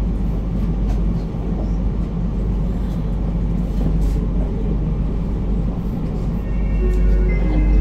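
KTM ETS Gold Class 93/2 electric train running steadily, a continuous low rumble with rail noise and faint clicks. A few steady tones come in near the end.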